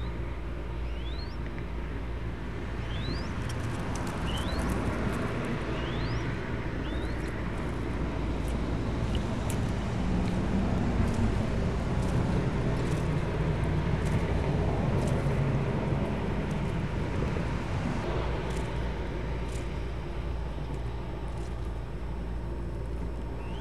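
Steady low rumble and hum of background noise, picked up by a nest webcam's microphone, with light rustling and clicks from the straw nest that swell in the middle as an adult mourning dove feeds its squab. A handful of short rising chirps come in the first seven seconds, and one more near the end.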